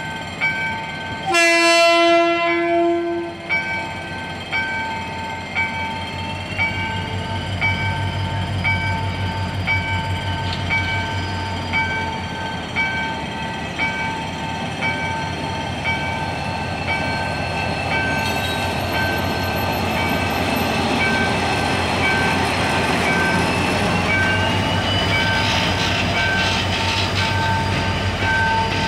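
GM GT22CW diesel-electric locomotive sounds one horn blast of about two seconds near the start, then its diesel engine runs with a steady rhythmic throb as it pulls the passenger train away, with a rising whine building near the end. A level-crossing warning bell dings steadily throughout.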